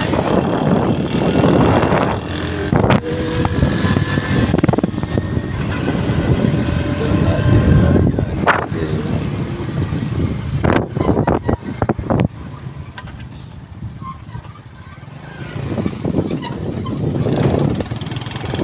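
A motor vehicle driving along a rough road, its running noise mixed with wind on the microphone and occasional knocks and jolts. It eases off for a few seconds about two-thirds of the way through, then picks up again.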